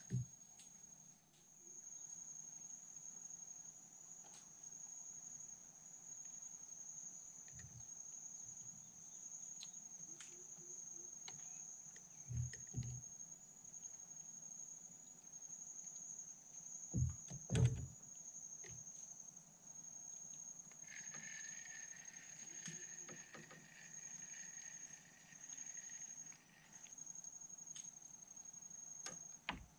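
Insects trilling without a break in one steady high-pitched tone, with a second, lower buzzing call joining from about two-thirds of the way in for several seconds. A few faint knocks sound over it, the loudest a pair just past the middle.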